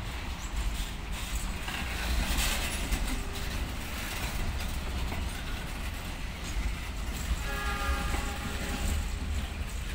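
Container flatcars of a freight train rolling past with a steady rumble of wheels on rails. About seven and a half seconds in, a train horn sounds for about a second and a half.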